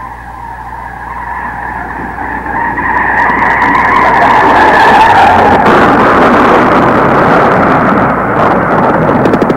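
Electronic noise swell opening a recorded track: a hissing wash that grows steadily louder over about five seconds and then holds loud. Near the end, a fast pulsing throb cuts in.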